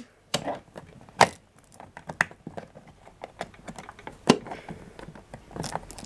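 Plastic clicks and knocks from fitting the hose back onto a 1995 Hoover Turbopower 2 upright vacuum cleaner by hand, with sharper clicks about a second in, two seconds in and just past four seconds.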